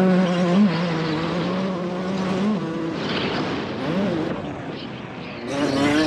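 2003 Kawasaki KX125's two-stroke 125 cc engine, breathing through an FMF Fatty pipe and Shorty silencer, running under throttle while the bike is ridden, with wind rushing over the onboard microphone. The engine holds a steady pitch, drops away after about two and a half seconds as the throttle closes, blips once a little later, and rises again back on the throttle near the end.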